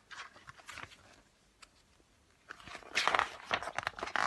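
Paper crackling and rustling, as of a picture book's pages being handled and turned. There are a few faint clicks, then a louder burst of crinkly strokes in the last couple of seconds.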